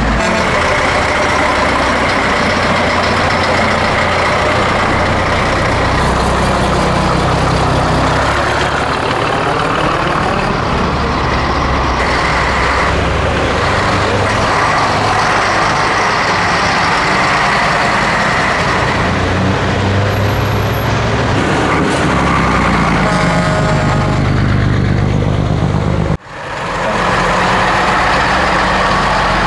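Heavy diesel engines of classic Scania trucks running as the trucks drive past one after another, with a sudden brief drop-out near the end.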